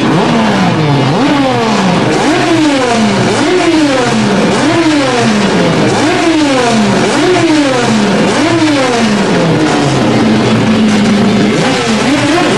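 Race car engine revving hard, its pitch climbing and dropping back over and over, about once a second, as it is pushed up and eased off. Shortly before the end it holds one steady note, then climbs again.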